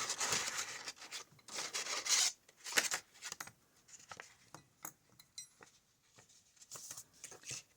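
Hands handling a set of steel lock picks: rustling and rubbing for about the first two seconds, then scattered light clicks and ticks.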